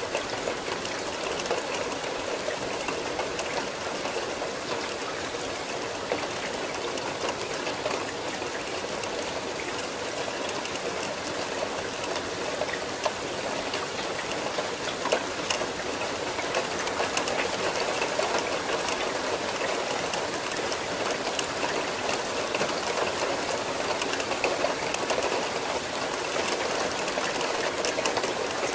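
Steady rain falling, a continuous hiss with many separate drop ticks scattered through it, a little louder in the second half.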